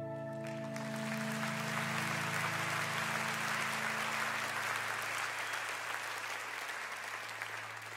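Audience applause that starts about half a second in, over the fading end of a soft held keyboard chord, and begins to die down near the end.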